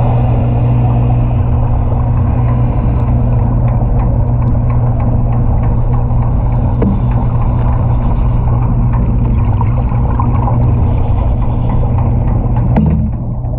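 Underwater welding: a steady low hum with a dense, irregular crackle of small pops, with a brief break just before the end.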